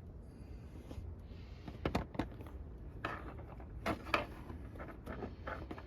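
Scattered clicks and knocks of plastic push-pin trim retainers being pushed and tapped into place by hand, with the sharpest pairs about two and about four seconds in.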